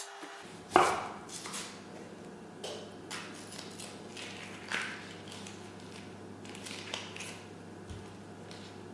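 Food-preparation sounds with kitchen utensils: one sharp knock about a second in, then scattered lighter knocks and clatter over a low steady hum.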